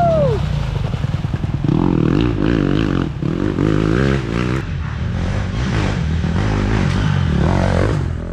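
Dirt bike engines revving and easing off as off-road motorcycles ride a muddy trail, the pitch rising and falling with the throttle several times.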